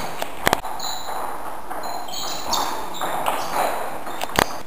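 Table tennis ball clicking off bats and tables during rallies, with sharp double clicks about half a second in and near the end. Short high squeaks of shoes on the hall floor come in between.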